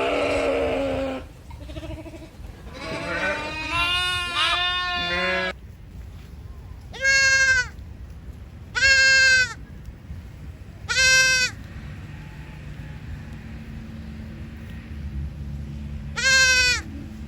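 Bleating from sheep or goats: a call at the start, a long wavering bleat about three to five seconds in, then four short, high-pitched bleats a couple of seconds apart, the last near the end.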